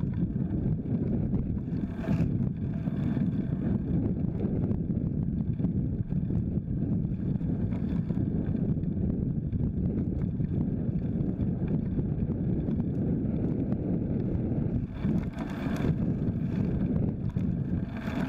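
Wind rushing over the microphone of a camera on a moving folding bike, a steady low rumble with road noise from the tyres on concrete. It briefly gets brighter about two seconds in and again around fifteen seconds in.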